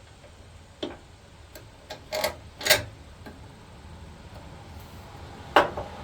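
A few separate sharp clicks and knocks, irregularly spaced, the loudest about halfway through and near the end: parts and tools being handled while an idler pulley is fitted to a lawn tractor's mower deck.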